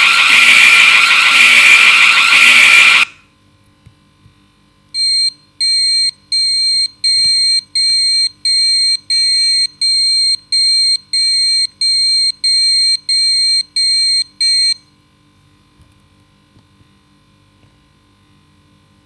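A loud, harsh noise that cuts off abruptly about three seconds in. After a short pause comes an electronic alarm beeper: about fourteen short, high, slightly warbling beeps, roughly one and a half a second, lasting about ten seconds.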